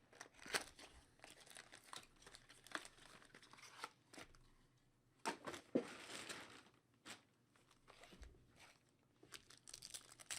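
Faint tearing and crinkling of a trading-card pack's wrapper being ripped open and handled, in short scattered crackles with a few sharper ticks.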